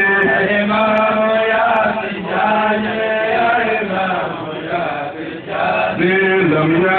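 Men chanting an Islamic devotional praise song in long, held melodic lines over a steady low drone. It eases off briefly past the middle, then comes back in full.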